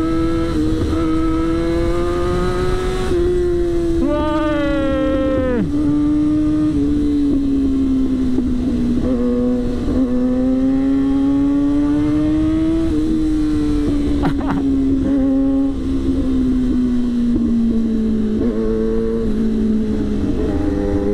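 Yamaha R6 inline-four engine running at high, steady revs while riding, with heavy wind rumble on the microphone. About four seconds in, a second motorcycle engine revs up and then drops away, and there is a single sharp tick near the middle.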